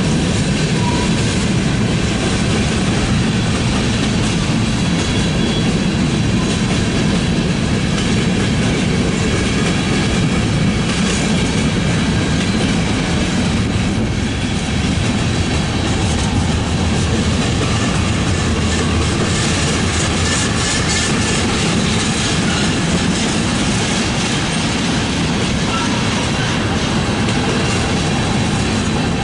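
Freight train of covered hoppers and tank cars rolling steadily past, with the rumble of the cars and their wheels clacking over the rail joints.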